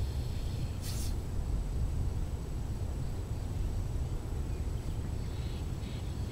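Wind buffeting the microphone: a steady low rumble, with a brief high hiss about a second in.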